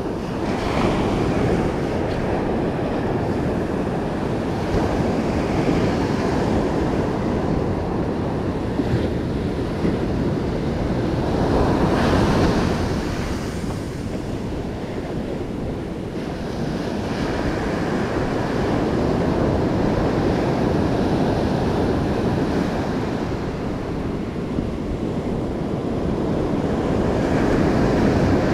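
Ocean surf breaking on a sandy beach, waves washing up the shore in swells that rise and fade every few seconds, with wind buffeting the microphone.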